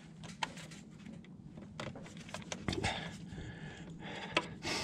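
Hands working a stubborn plastic retaining clip on a pipe in a pickup's engine bay: scattered light clicks and knocks of plastic and metal, a few more of them in the second half.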